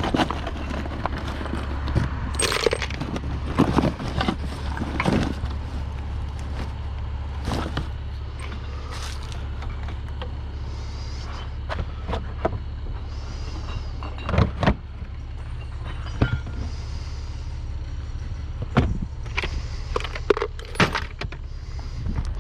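Scattered clanks, knocks and rattles of curbside scrap being rummaged through and handled, over a steady low hum.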